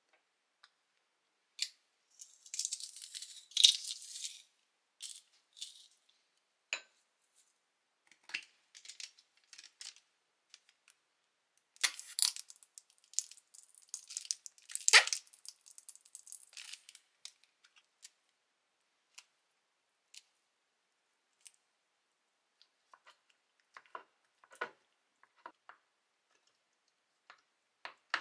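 Quiet food-prep sounds at a glass bowl: a metal garlic press crushing garlic with small crackles and clicks, then a squeeze bottle squirting mayonnaise, and near the end scattered clicks of a spoon stirring and tapping in the glass bowl of butter.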